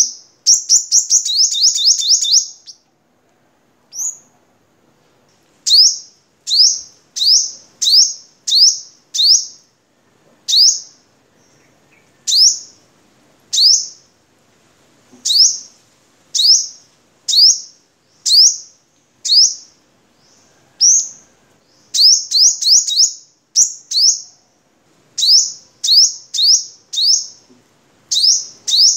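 Male purple sunbird singing: a fast run of sharp, high-pitched notes, then single piercing down-slurred notes about once a second, with quicker bursts of three or four notes in the second half.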